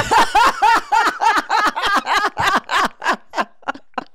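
A woman laughing hard: a long, quick, even run of ha-ha pulses, about six a second, that thins out into a few short breathy gasps near the end.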